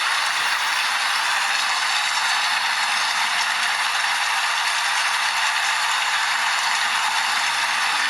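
Steady rain falling, an even unbroken hiss with no thunder or separate drops standing out.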